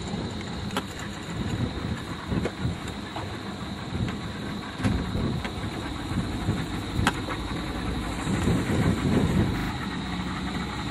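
Engine running steadily with a low rumble, mixed with wind noise and a few sharp knocks.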